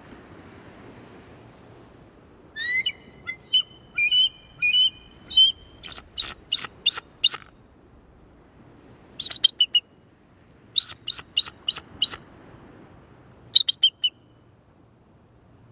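Eagle calling in bouts of high, thin, sharp notes. The first bout opens with a rising note about two and a half seconds in, followed by rapid series of clipped notes, with shorter groups of three to six notes repeating every couple of seconds.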